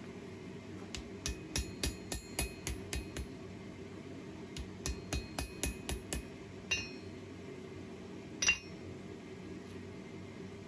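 Blacksmith's hand hammer striking iron on an anvil, each blow ringing. Two quick runs of about three blows a second, then a single ringing strike and, near the end, the loudest ringing blow.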